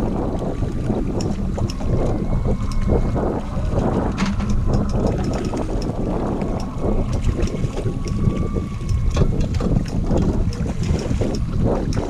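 Heavy wind buffeting the microphone, a dense rumbling noise that surges and falls unevenly. A faint thin whine wavers underneath.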